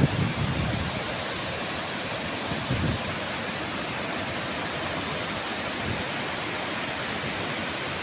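Large monsoon-swollen waterfall rushing steadily, an even wash of falling and churning water.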